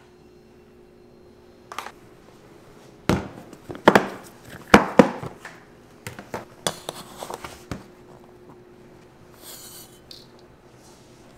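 Kitchenware being handled: a run of sharp knocks and clinks of pans and utensils in the middle, then a short hiss near the end.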